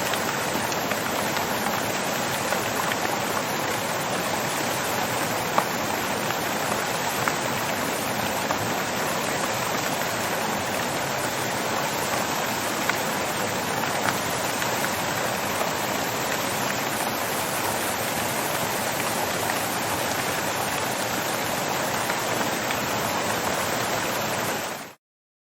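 Water fountain splashing in a steady, even rush of falling water, with a few small drips ticking out above it. It fades out quickly near the end.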